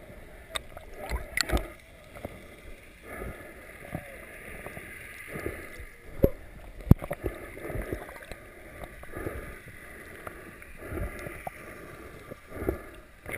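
Muffled underwater water noise heard through a GoPro's waterproof housing, with irregular knocks and two sharp clicks about six and seven seconds in as a hand bumps the housing.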